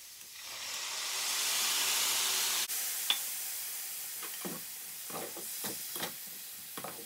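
Water splashed into a hot stainless-steel frying pan of minced tofu, onion and garlic hisses into steam. The hiss swells over the first second or two and then slowly dies down. From about halfway, a slotted spatula scrapes and stirs against the pan several times in quick strokes.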